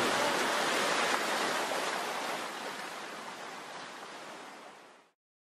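Steady rush of ocean surf breaking on a beach, fading out gradually over about five seconds into silence.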